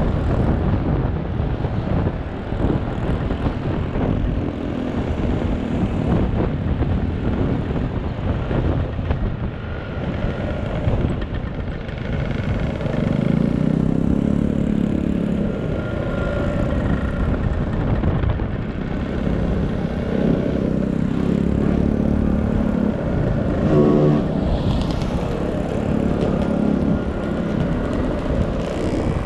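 Motor scooter engines running, their pitch rising and falling at times.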